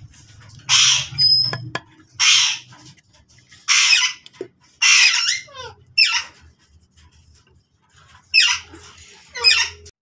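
Alexandrine parakeets squawking: about eight harsh, loud screeches in short bursts, often in pairs, with a few seconds' pause before the last two.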